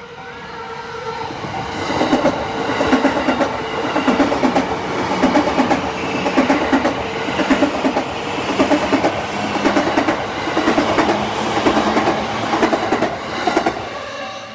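Yamanote Line commuter train passing over a level crossing: the wheels clatter over the rail joints in groups about once a second. The clatter builds about two seconds in and fades near the end, over the steady ring of the crossing's warning bell.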